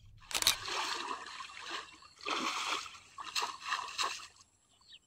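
Water sloshing and splashing in three or four short bursts, the sound of shallow pond water being stirred.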